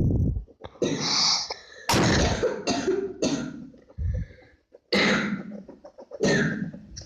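A person coughing repeatedly, about six short coughs spread through the few seconds.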